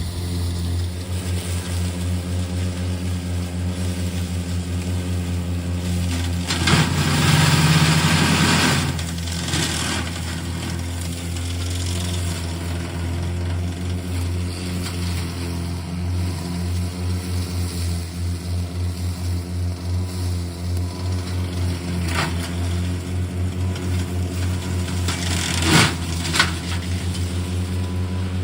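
Remote-control lawn mower running steadily, with a louder, rougher surge about seven to nine seconds in and a few sharp clicks near the end.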